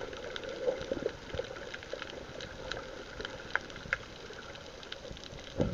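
Water gently sloshing and trickling, with small scattered ticks and taps throughout.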